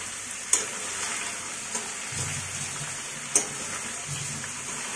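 Chicken pieces, potato, onion and tomato frying in oil in a wok, sizzling steadily as they are stirred, with a few sharp knocks of the stirring utensil against the pan, two of them loud.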